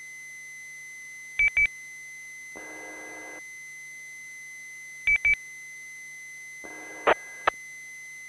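Short electronic beeps on an amateur radio channel with no one talking: two double beeps a few seconds apart, then two single beeps near the end. Between them a brief buzzing tone sounds twice, and a faint steady high tone runs underneath.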